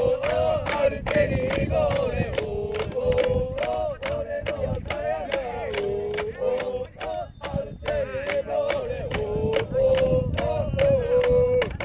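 Football supporters singing a team chant together in unison, a held, tuneful melody over a steady beat of sharp hits about three times a second.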